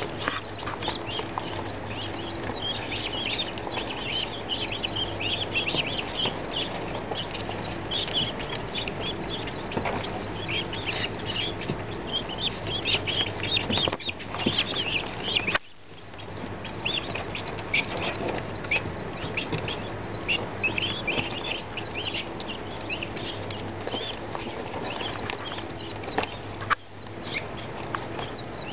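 A brood of baby ringneck pheasant chicks and French guinea keets peeping without pause, many short high chirps overlapping into a dense chorus. The peeping cuts off sharply about halfway through and picks up again within a second or so.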